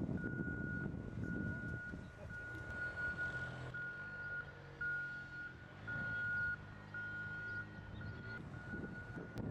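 A vehicle's electronic warning beeper sounding one steady high beep about once a second, over the low rumble of the vehicle running.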